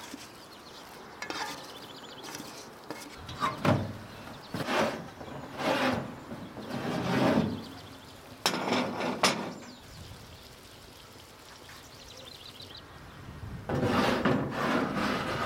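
Cooking handling sounds: a series of scrapes, rubs and knocks, with two sharp clicks about halfway through. Near the end comes a longer scrape as earthenware baking dishes are set down on a cast-iron wood stove top.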